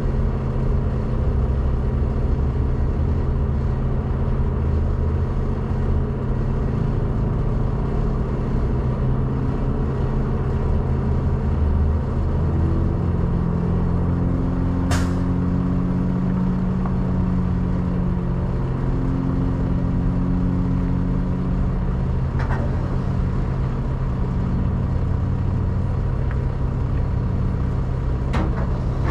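Diesel truck engine idling steadily, with a second, higher engine note rising and falling midway. There is one sharp metallic clank about halfway through and a couple of lighter clicks near the end.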